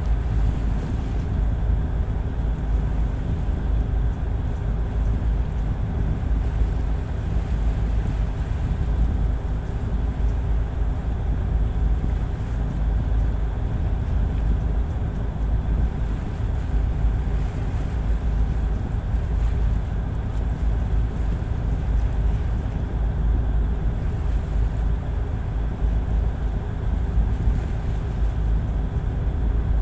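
Tugboat's diesel engine running steadily underway, a constant low drone with a haze of wind and water noise over it.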